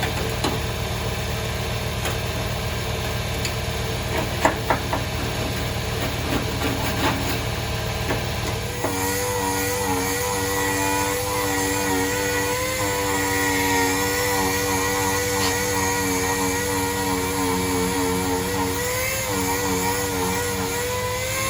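A steady low machine hum with a few light clicks. About nine seconds in, a motor starts and runs at a fairly steady pitch through the rest.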